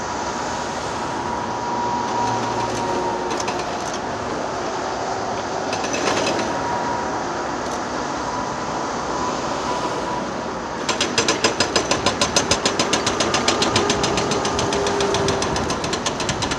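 Excavator engine and hydraulics running steadily with a faint whine, then a fast, even clatter of about six strokes a second starting around eleven seconds in and running on.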